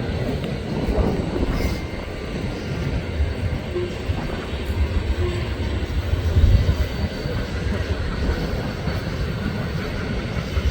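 Freight cars of a passing CSX train rolling by on the rails, a steady low rumble.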